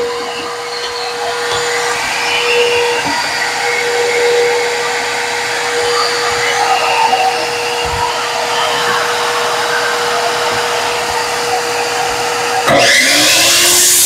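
Dust-collection vacuum running steadily with a constant hum, with a few small clicks. Near the end a compound miter saw's motor starts up, much louder, its pitch rising as the blade spins up.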